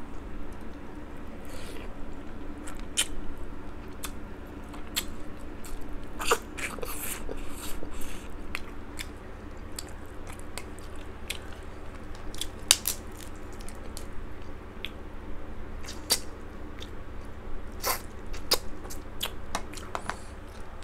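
Close-up eating sounds of crab legs: irregular sharp cracks and snaps of the shells being broken apart by hand, with crunching and chewing of the meat.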